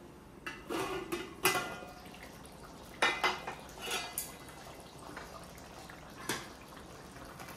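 Hammered aluminium plate lid taken off a large aluminium cooking pot and set down on the gas hob: a few metallic clinks, knocks and scrapes spread over several seconds, the loudest about three seconds in.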